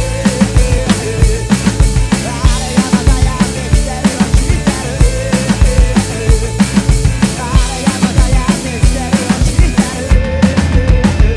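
Rock drum kit played hard in time with a recorded rock track, with steady bass drum and snare hits over the band's pitched backing. Near the end the cymbals and high end drop away for a moment.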